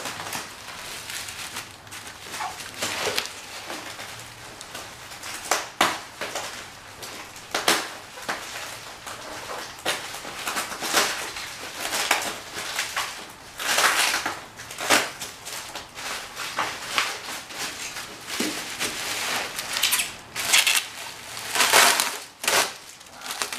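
Plastic bubble wrap being slit with a knife and pulled away, crinkling and crackling in irregular rustles, loudest near the end.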